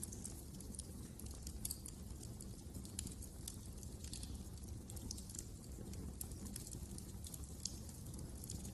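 Wood fire crackling in a fireplace: scattered small pops and snaps at irregular intervals over a low, steady rumble of the burning logs.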